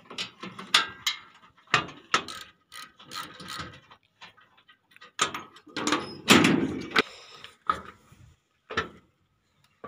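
Socket wrench and hand tools working bolts on an excavator's steel deck plates: a run of uneven metallic clicks and clanks, with a longer, louder scraping clank about six seconds in.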